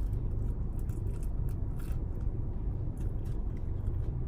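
Close-up mouth sounds of someone chewing and biting pizza: small wet clicks and light crunches, over a steady low rumble inside a car cabin.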